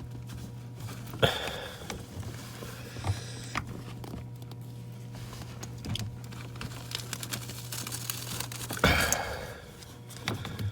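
Scattered knocks, scrapes and rustles of a strap wrench being worked around a diesel engine's spin-on fuel filter in a cramped engine compartment, the loudest scrape about nine seconds in. A steady low hum runs underneath.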